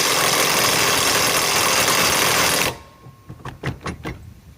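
RIDGID high-torque cordless impact wrench hammering as it tightens a fastener, cutting off abruptly about two and a half seconds in. A few short knocks follow.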